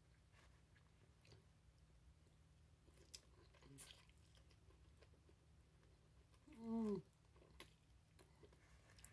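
Faint chewing and wet mouth clicks as a person eats butter-dipped lobster meat, with a short hummed "mm" falling in pitch about two-thirds of the way through.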